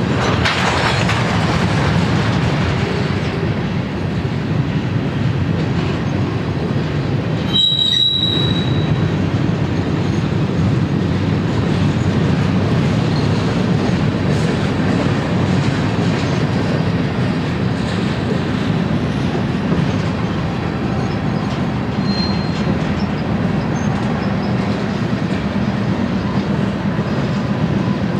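Union Pacific freight train of covered hopper cars rolling past with a steady rumble of steel wheels on rail. A brief high-pitched wheel squeal comes about eight seconds in.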